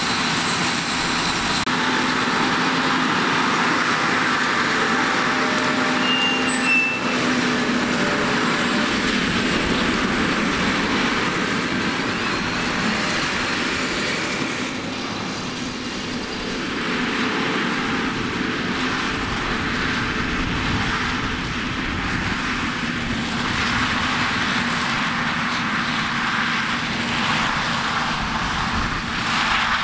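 Large diesel farm machinery running steadily during corn harvest: a continuous engine drone that eases slightly about halfway through.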